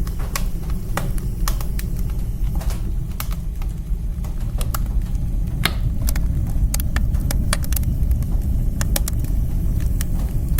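Wood fire burning in a woodstove: a steady low rumble of the flames with frequent, irregular sharp crackles and pops from the burning wood.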